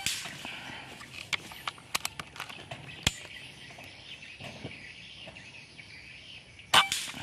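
FX Bobcat PCP air rifle firing: a sharp report with a short ring after it, about seven seconds in. The tail of an earlier shot fades at the very start, and a few faint clicks fall in between.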